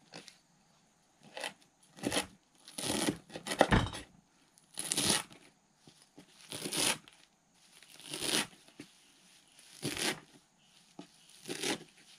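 Kitchen knife chopping a bunch of carrot leaves and stems on a wooden cutting board: slow, separate cuts, about one every second or so, each slicing through the stems down onto the board.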